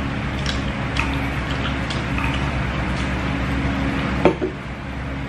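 Spoons and chopsticks clinking against stainless steel bowls while eating: scattered light clicks and one sharper knock about four seconds in, over a steady low hum.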